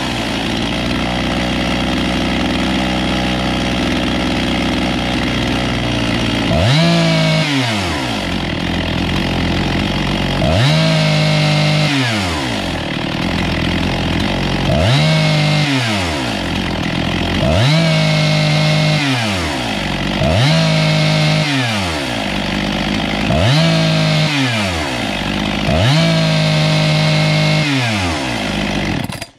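Husqvarna 257 two-stroke chainsaw idling, then revved from idle about seven times, each time climbing quickly with no hesitation and falling back to idle, the sign of a low-speed jet tuned to eliminate the bog. The engine cuts off near the end.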